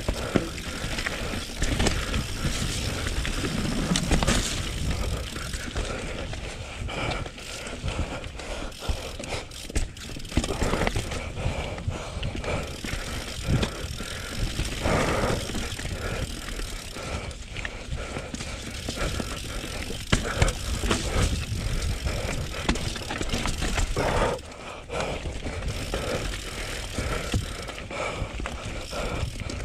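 Mountain bike ridden fast down a rocky, rooty dirt trail: tyres running over dirt and stones, the bike rattling continuously, with sharp knocks as it hits rocks and roots.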